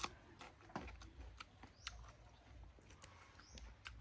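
Faint, irregular clicks and crunches of someone chewing a mouthful of fish salad with raw vegetables.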